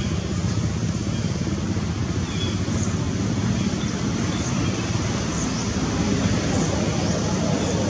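Steady low rumbling background noise, with a few faint, short high chirps.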